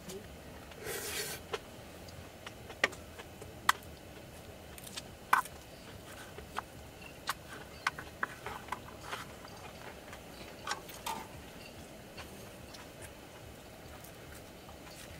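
Scattered light clicks and taps of small objects being handled, with a short rustle about a second in.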